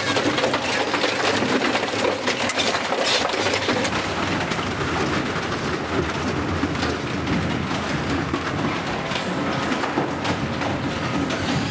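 SSI industrial shredder crushing plastic football helmets: a dense, continuous crackling and cracking of breaking plastic.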